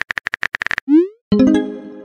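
Fast, even typing clicks from a texting sound effect, then about a second in a short rising swoop, followed by a bright ringing chime that fades: the notification sound of a new chat message popping up.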